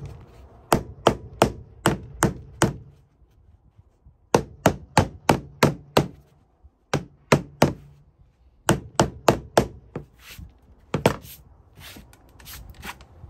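Mallet knocking on click-lock vinyl floor planks to seat and lock the joints, in runs of five or six sharp knocks about three a second with short pauses between, then softer, scattered taps near the end.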